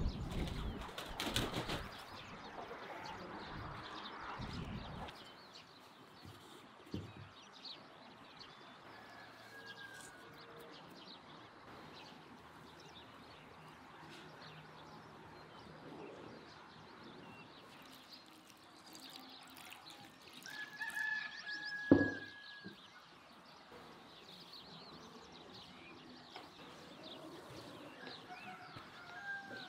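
Chickens in a farmyard, with a rooster crowing once past the middle and scattered short bird chirps. A single sharp knock right after the crow is the loudest sound.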